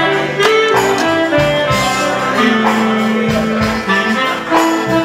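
Instrumental music led by plucked strings, with held notes that change every half second or so and scattered percussive hits.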